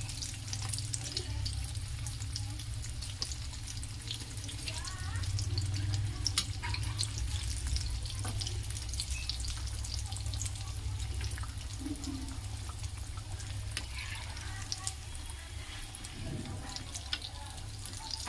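Potato cutlets deep-frying in hot oil in a steel kadhai: a steady crackling sizzle with many sharp little pops, over a low steady hum.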